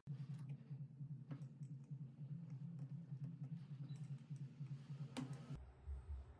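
Scattered light clicks and taps of wire whisk loops made from bicycle spokes being handled and fitted into a metal shaft coupler, over a steady low hum.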